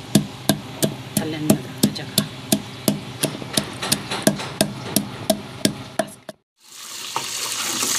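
Wooden pestle pounding green chillies and ginger into a paste in a wooden mortar, in steady knocks about three a second. The knocking stops abruptly about six seconds in. After a moment of silence, a rising frying hiss of onions browning in oil follows.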